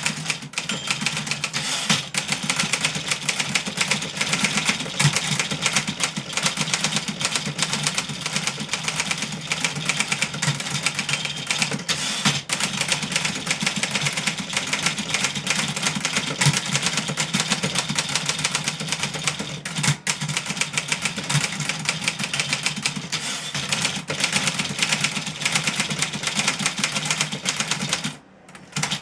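A 1963 Remington Model 11 portable manual typewriter being typed on quickly and continuously, with many rapid keystroke clacks of typebars hitting the platen. The typing pauses briefly near the end.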